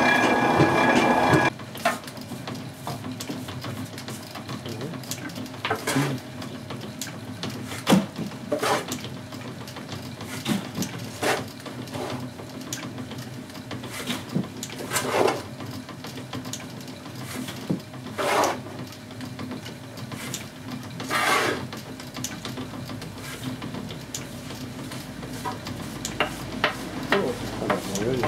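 A flat metal shovel scraping and scooping hot ground walnut paste across a large iron heating pan, in irregular strokes a few seconds apart. A loud clattering noise cuts off abruptly about a second and a half in.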